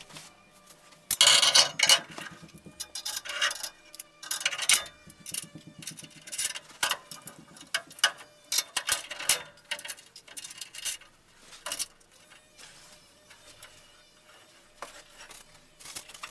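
Steel tube frame and its mounting bolt being handled and fitted by hand: irregular metal clinks, knocks and scrapes, some louder than others, with short pauses between.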